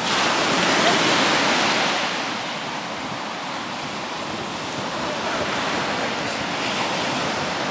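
Ocean surf washing up a sandy beach: a steady rushing that swells louder over the first couple of seconds, then eases and settles.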